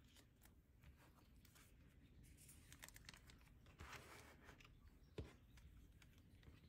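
Near silence with faint rustling of clear plastic binder sleeves as photocards are handled and slid into the pockets, and a soft low thump about five seconds in.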